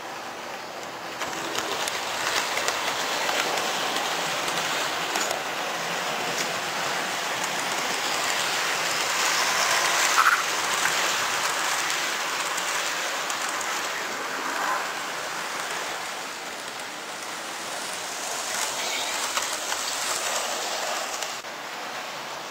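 Model trains running on the layout close by: a steady rattling clatter of small wheels on the track that swells about a second in, with a sharper clack about ten seconds in, and drops back near the end.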